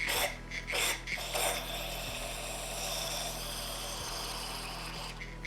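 Aerosol cleaner sprayed through its straw into a pneumatic orbital sander's air inlet to flush dust out of the air motor. A few short hisses, then a steady hiss for about three and a half seconds that stops just before the end.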